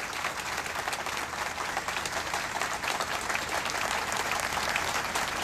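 Audience applauding: many hands clapping together, growing a little louder.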